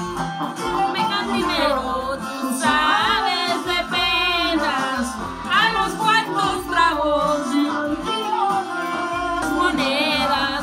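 Music: a sung song, the singing voice wavering widely in pitch with heavy vibrato over instrumental backing.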